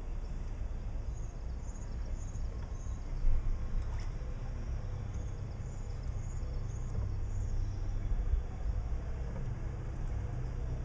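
Outdoor ambience: a steady low rumble, like wind on the microphone or distant traffic, with a small bird chirping in two short runs of high notes and a single knock about three seconds in.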